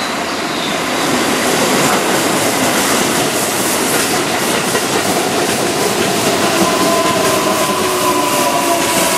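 Keihan 7000-series electric commuter train running past, getting louder about a second in, its wheels clacking over rail joints in a quick even rhythm. In the second half a whine slowly falls in pitch.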